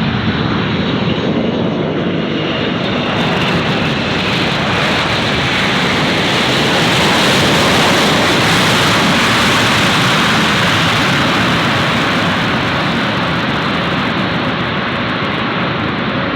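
Jet airliner passing close by, its engine noise a dense rushing roar that swells to a peak about halfway through and then eases off slightly.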